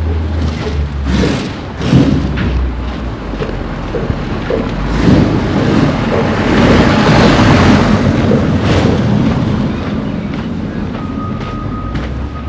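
A motor vehicle passing close by: its rumble and road noise swell to a peak midway and ease off, with wind buffeting the microphone. A steady high tone sounds in short stretches near the end.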